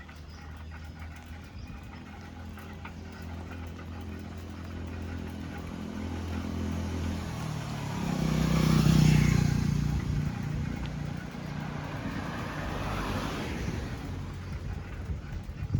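Motor traffic passing on a road. A steady engine hum gives way to a vehicle passing close, its engine and tyre noise swelling to a peak about nine seconds in and fading, with a second vehicle passing a few seconds later.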